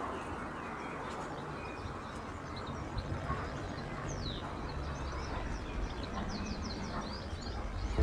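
Wild songbirds calling and chirping now and then, with a falling note about halfway through and a quick run of short chirps near the end, over a steady low background rumble.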